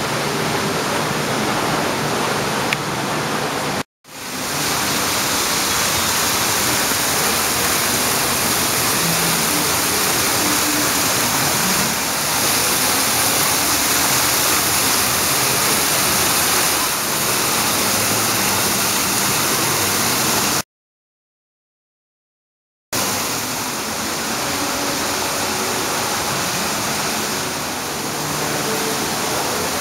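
Steady loud rushing noise, cut off abruptly twice: for an instant about four seconds in, and for about two seconds past the middle.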